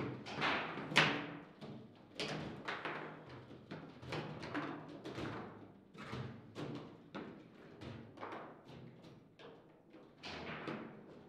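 Foosball table in play: irregular knocks and thuds as the ball strikes the plastic players and table walls and the rods are jerked against their stops, the loudest about a second in.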